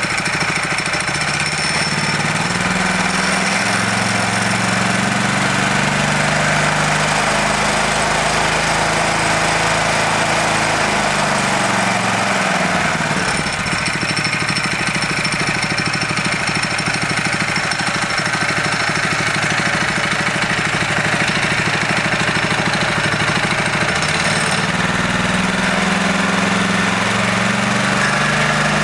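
Small single-cylinder petrol engine running a MAX-TORQUE torque converter belt drive and chain, revved up about a second in and held, dropping back toward idle around eleven seconds in, then revved up again near the end.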